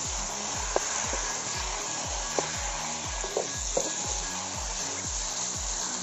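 Chicken curry sizzling in a kadai while a metal spatula stirs it, clicking and scraping against the pan a few times. Background music with a steady low beat plays underneath.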